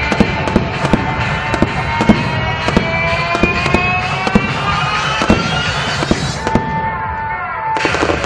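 Aerial fireworks bursting in quick succession, many sharp bangs and crackles, with music playing underneath.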